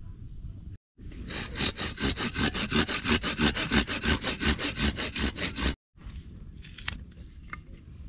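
Hand pruning saw with a curved toothed blade cutting through a dry wooden branch in quick, even back-and-forth strokes, about five a second. It starts about a second in and cuts off abruptly before the sixth second, with a few light handling clicks after.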